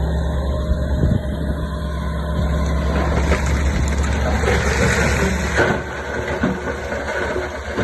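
Heavy diesel earthmoving machine engine running with a steady low drone that drops away a little before six seconds in. A rushing hiss builds over the middle seconds and fades with it.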